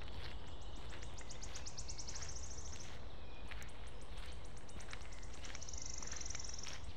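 A songbird sings twice, each time a quickening series of high notes that runs into a fast trill. Beneath it are regular footsteps on a dirt road and a steady low rumble of wind or handling noise.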